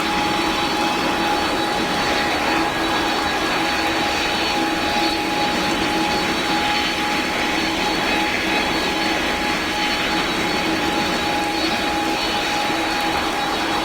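Jet aircraft engines running steadily: a constant rush of noise with a high, steady whine over it and no rise or fall in pitch.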